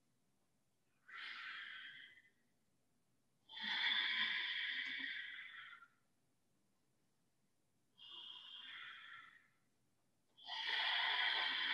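Ujjayi breathing, slow hissing breaths drawn through a narrowed throat, four in all: two shorter, quieter ones and two longer, louder ones of about two and a half seconds.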